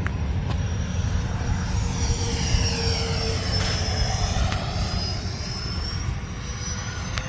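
Electric ducted fan of an FMS F-86 Sabre 80mm RC jet whining as the plane flies a pass in a turn. The whine dips in pitch about halfway through and climbs again near the end.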